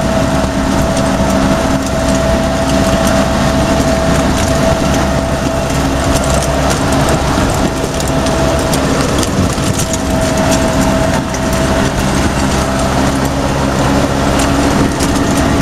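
M151A2 military jeep's four-cylinder petrol engine running steadily at road speed, with a steady higher whine over the engine drone, mixed with heavy wind and road noise.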